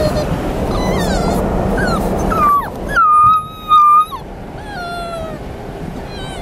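A dog whining in a series of high, sliding whimpers, one held for about a second near the middle. Underneath is the steady road noise of a moving car's cabin, which quietens about halfway through.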